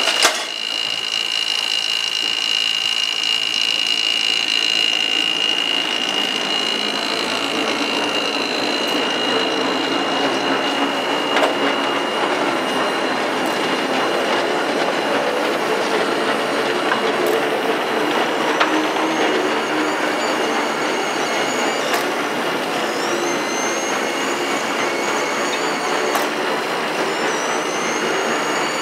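Railway turntable turning with a steam locomotive on it: a steady grinding rumble from the bridge wheels and drive, with several high metal squeals in the second half. A high steady tone is heard at first and fades out over the first ten seconds or so.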